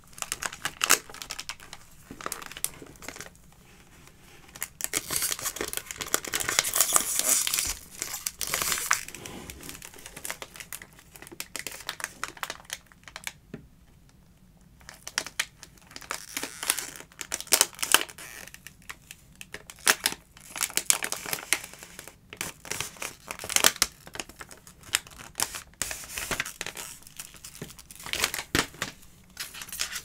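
Paper packaging crinkling and tearing as a fragrance gift set is unwrapped, with scattered sharp clicks and taps from handling the box. The rustling is densest early on and pauses briefly in the middle.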